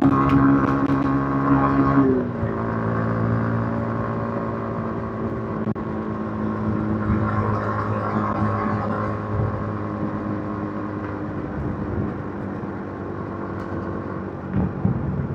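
Yamaha MT-15's 155 cc single-cylinder engine through its stock exhaust, heard from the rider's seat. It drones at high revs, the revs drop sharply about two seconds in, and it then runs steadily at a lower pitch under wind and road noise.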